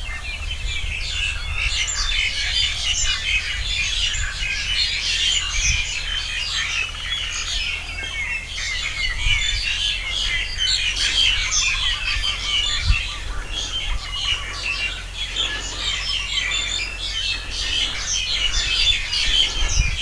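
A chorus of many small birds singing and chirping together in trees, a dense unbroken mix of overlapping chirps, trills and whistles, with a low rumble of wind on the microphone beneath.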